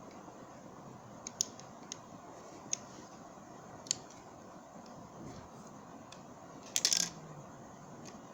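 A coin going into a homemade vending machine: scattered small clicks and taps, then a short clatter of clicks about seven seconds in.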